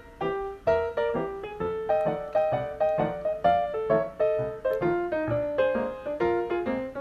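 Background piano music, notes struck a few times a second in a flowing melody.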